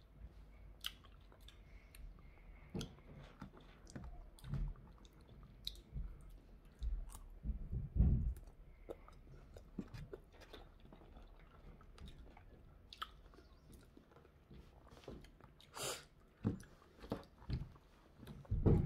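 A person chewing fresh strawberries close to the microphone: irregular soft mouth clicks and smacks, louder about eight seconds in and again near sixteen seconds.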